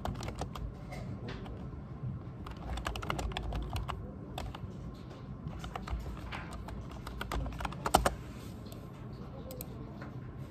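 Typing on a computer keyboard: a quick, irregular run of key clicks, with one louder click about eight seconds in.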